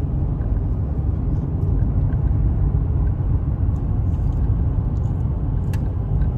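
Steady low rumble of road and engine noise inside the cabin of a vehicle moving at highway speed.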